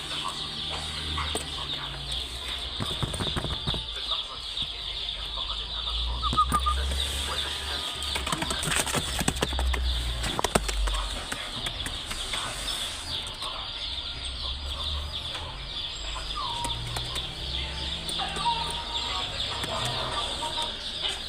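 Pigeons in a loft cooing and clucking, with occasional wing flaps, over a steady high-pitched background whine.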